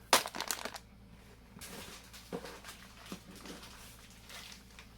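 Food packages being handled: a quick clatter right at the start, then rustling with a couple of light knocks.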